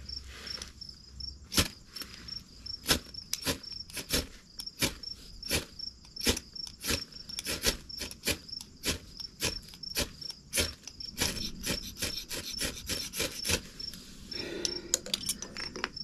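Flint and steel being struck over and over, sharp clicks about two a second, trying to throw sparks onto tinder for a fire; the striking stops about three seconds before the end. Crickets chirp steadily underneath.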